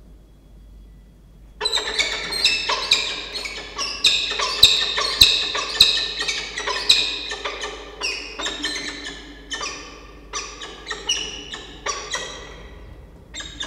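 Peregrine falcons calling at the nest as the second adult arrives during a changeover: a sudden run of short, pitched calls, about three a second, starting about a second and a half in and thinning out toward the end.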